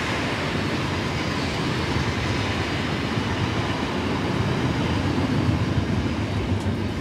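Electric passenger train's coaches passing close by at speed: a steady rush of wheels on rail.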